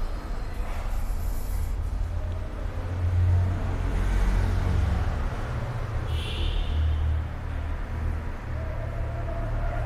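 Classroom room tone: a low, steady rumble with a few faint scattered sounds and no speech.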